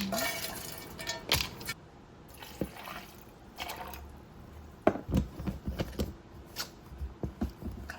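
Boiled chickpeas and liquid being tipped into a blender jar: some wet pouring and splashing, with a scatter of light knocks and clicks against the jar, more of them in the second half.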